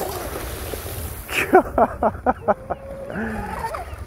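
A man laughing: a quick run of about seven short pitched pulses in the middle, over a low outdoor hiss. Near the end a faint steady whine comes in, from the RC boat's electric motor running at a distance.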